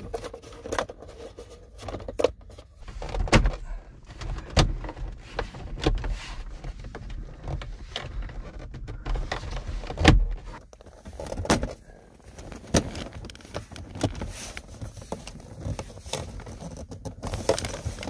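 Plastic center-console trim panel of a 2012 VW Beetle being slid in and pushed into place by hand: irregular plastic knocks, rubbing and clicks as it is worked onto its clips, the loudest knock about ten seconds in.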